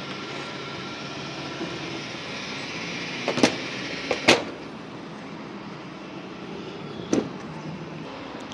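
Steady hum of a fuel station forecourt while a diesel pump fills a car, broken by sharp clicks: two about a second apart near the middle and one more about three seconds later.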